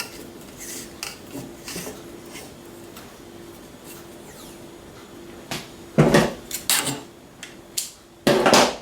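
Small clicks and knocks of handling, then stop tape being pulled off its roll and wrapped onto an aluminium pole section: a few short ripping strips a little after halfway and a longer, louder rip near the end.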